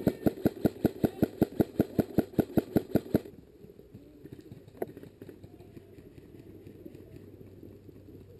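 Airsoft rifle firing a steady string of shots, about six or seven a second, that stops abruptly about three seconds in.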